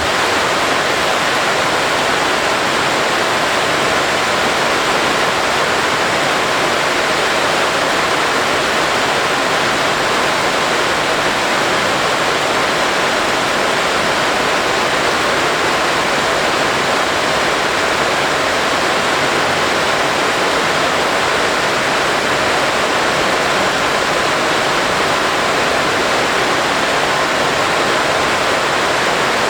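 Water spraying in a steady, unbroken rushing hiss.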